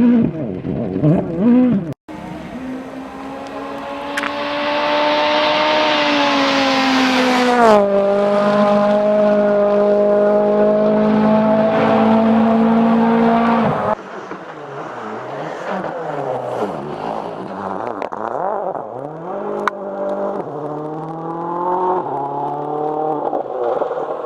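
Rally car at full throttle approaching, its engine pitch dropping sharply as it passes about eight seconds in, then running at steady high revs. After a cut about fourteen seconds in, a rally car further off revs up and down repeatedly through its gears.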